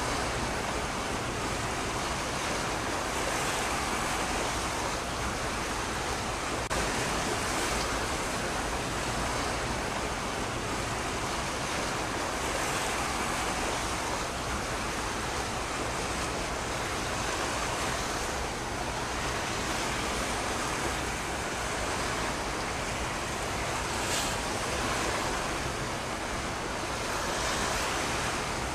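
Steady rushing noise of wind and harbour water, an even hiss with no distinct events.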